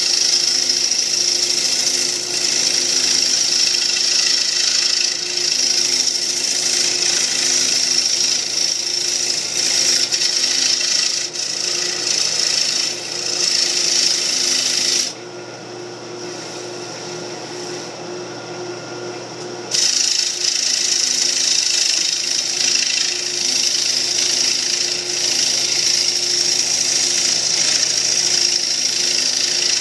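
Wood lathe spinning a mahogany bowl, with a tool held against the turning wood making a steady hissing cut over the lathe's low motor hum. About halfway through, the tool comes off the wood for roughly five seconds, leaving only the hum, then goes back on.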